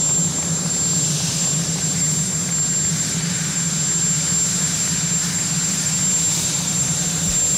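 Marine One, a Sikorsky VH-3D Sea King helicopter, running on the ground with its turbines and rotor going: a steady high whine over a low drone.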